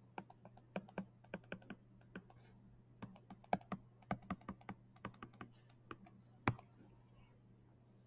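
Stylus tapping and clicking on a tablet screen while numbers are handwritten: an irregular run of light clicks in small clusters, with one sharper tap about six and a half seconds in. A faint steady low hum lies underneath.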